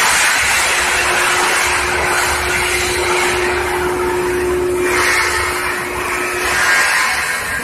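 Induction surface-quenching line for oil pipe running: a steady hiss over a low hum, with a steady mid-pitched tone that swells in the middle.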